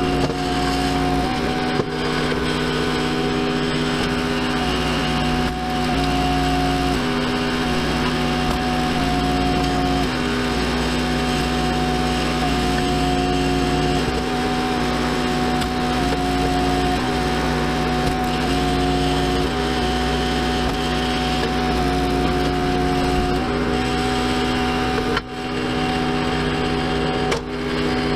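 Small gasoline engine of a Ruggedmade 22-ton hydraulic log splitter running steadily, its note stepping up and down in pitch every few seconds as the splitter works.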